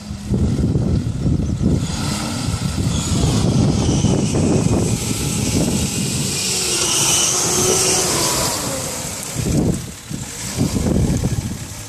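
Nissan Patrol Y60's TD42 4.2-litre straight-six diesel pulling under load as the truck climbs a steep bank. A rushing hiss builds through the middle, and the sound briefly drops away about ten seconds in.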